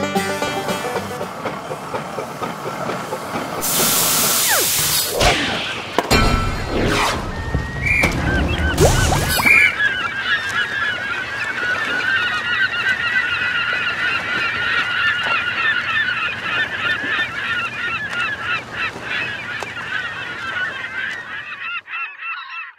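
Cartoon sound effects: a loud hiss a few seconds in, then clattering knocks with two short high toots. From about ten seconds in, a large flock of birds calls continuously in a dense chorus, fading out at the end.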